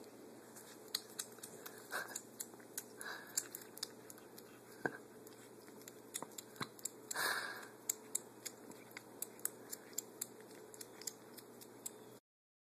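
A kitten crunching dry kibble from a plate: quick, irregular crunches and clicks, with a louder, longer scrape about seven seconds in. The sound cuts off just before the end.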